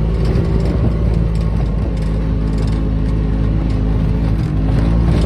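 Small off-road buggy engine running steadily at a constant speed.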